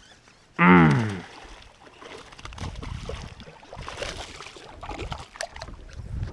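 A short, loud exclamation falling in pitch about half a second in as a bass strikes, then water splashing as the hooked largemouth bass thrashes at the surface beside the boat, loudest about four seconds in.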